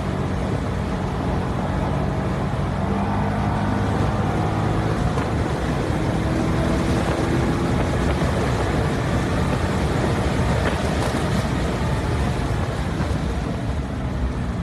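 The 2012 Corvette Grand Sport's 6.2-litre LS3 V8 running under load as the car is driven on track, over steady wind and tyre noise. The engine pitch rises slowly partway through.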